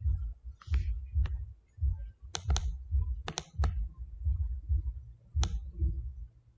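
Computer mouse and keyboard clicks: scattered sharp clicks, some in quick pairs, over irregular dull low thuds.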